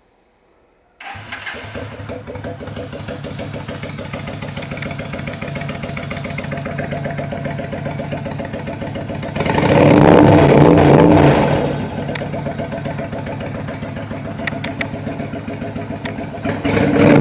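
Honda VBlade motorcycle with a Roncar JJ curved aftermarket exhaust starting up about a second in and settling into an idle. It is revved up and back down once about ten seconds in, and again near the end.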